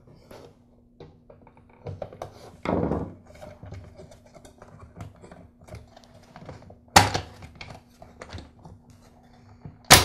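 Scattered plastic clicks and knocks as the two halves of a Black and Decker CST1200 string trimmer's plastic motor housing are worked apart by hand. There is a duller knock about three seconds in, and sharp snaps about seven seconds in and at the end.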